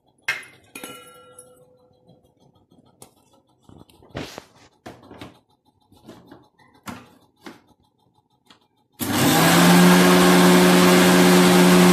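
A few light clinks and knocks of steel bowls and the mixer jar, then, about three-quarters of the way through, an electric mixer grinder starts and runs loud and steady with a low hum, grinding roasted spices with rock salt in its steel jar.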